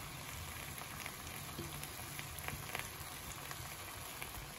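Soft, steady sizzling with faint scattered crackles from a hot pan of sprouted moong sabzi, its gas flame already turned off.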